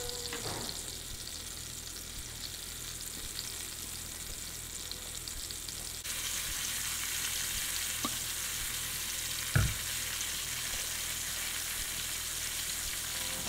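Flour-dusted cobia pieces sizzling steadily in hot olive oil in a nonstick pan, the frying hiss getting louder about halfway through. A single dull knock sounds about two-thirds of the way in.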